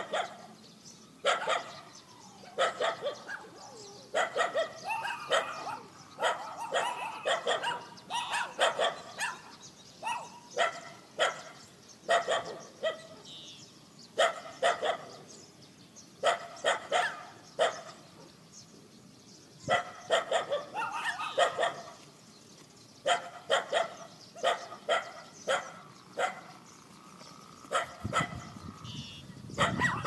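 A dog barking over and over, in quick runs of barks with short breaks between them.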